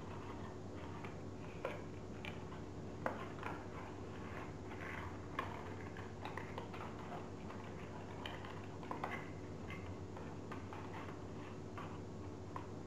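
Folded paper origami modules being handled and slotted together by hand: scattered soft rustles and small clicks of the paper, over a steady low hum.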